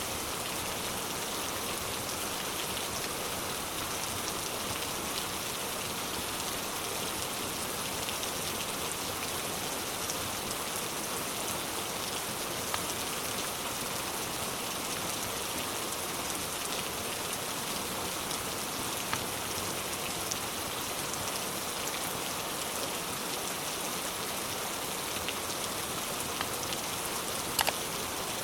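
Steady rain falling, mixed with a wood fire in a fireplace that pops sharply a few times, the loudest pop near the end.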